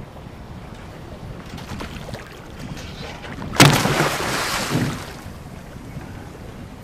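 A hooked shark thrashing at the surface beside the boat makes one loud splash about halfway through, lasting about a second, over a steady wash of wind and water.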